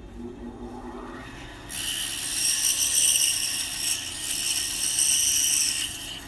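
Bandsaw cutting through a small piece of wood for about four seconds, starting about two seconds in and stopping near the end; the saw keeps running after the cut.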